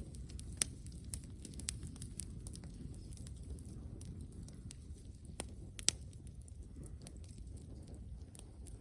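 Wood campfire crackling, with irregular small pops and two sharper pops, one just after the start and one about six seconds in, over a low steady rumble.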